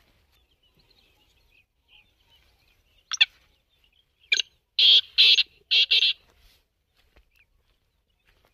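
Black francolin calling: a loud, harsh, grating call of about six notes in quick succession, starting about three seconds in and lasting about three seconds.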